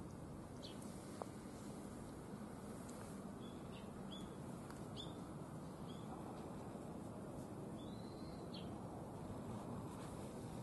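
Small birds chirping over steady outdoor background noise: a dozen or so short, high chirps scattered through, and one longer arched call about eight seconds in.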